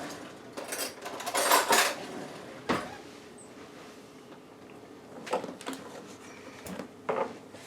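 Kitchen utensils and dishes being handled: scraping and rustling for the first couple of seconds, then a few separate sharp knocks and clinks.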